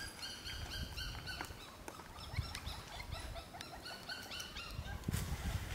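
Puppies whimpering and squealing: many short, high cries in quick succession, with a few dull thumps, the loudest near the end.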